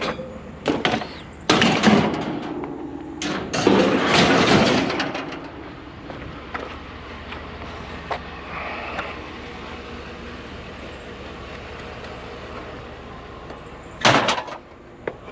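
Scrap being handled and loaded, likely the large metal fan cage: a few loud scraping and banging bursts, around two seconds in, around four seconds in and near the end, over the steady low hum of an idling vehicle.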